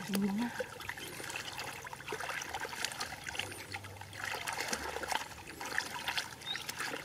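Hands groping and sloshing through shallow muddy water, with many small irregular splashes, trickles and drips.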